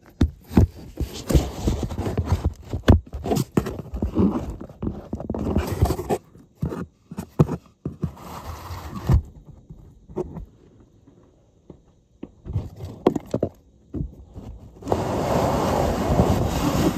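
Knocks, clicks and scrapes of a phone being set into a small model elevator car and its door being shut. About fifteen seconds in, the model elevator starts its ride with a steady, rough rumble.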